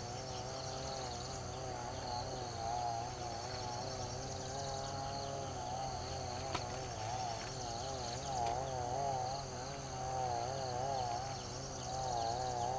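Insects chirring and buzzing: a fast, even high trill over a lower wavering drone that sways up and down in pitch.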